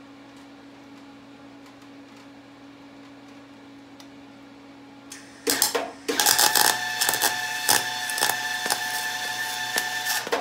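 Welding arc on an exhaust pipe: a short burst about five and a half seconds in, then a continuous crackle with a steady buzz that cuts off suddenly at the end.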